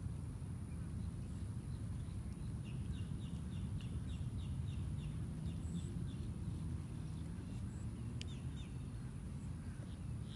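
Low steady outdoor rumble, with a bird calling in a quick run of short high chirps, about four a second, for a few seconds starting near three seconds in, and one sharp click near the end.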